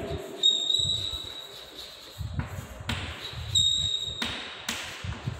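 Chalk writing on a blackboard: a run of taps and short scratching strokes, with two brief high squeaks, one about half a second in and one about three and a half seconds in.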